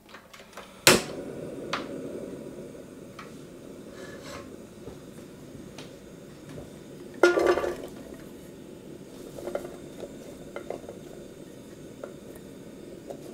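A sharp click as the portable stove is switched on, then a steady low noise from the burner. About seven seconds in, strips of bell pepper drop into the empty stainless steel sauté pan with a loud clatter, followed by light taps as they are spread by hand.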